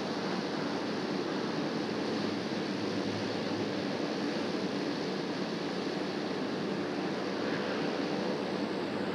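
Twin turboprop engines of a C-27J Spartan military transport running as the aircraft rolls along the airfield, a steady droning rush with no breaks.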